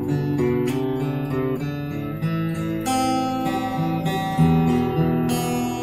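A cheap white Lakewood-style custom cutaway acoustic guitar played fingerstyle: picked chord arpeggios with notes changing every half second or so, and a few fuller strummed chords. It is a demonstration of the guitar's unplugged tone.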